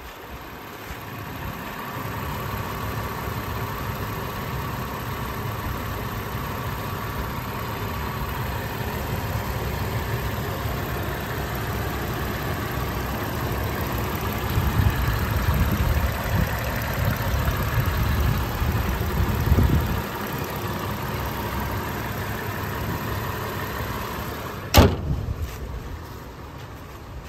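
2011 Toyota FJ Cruiser's 4.0-litre V6 idling steadily with the hood open, louder for a few seconds midway as the engine bay is approached. Near the end the hood is shut with one sharp slam, after which the idle is quieter.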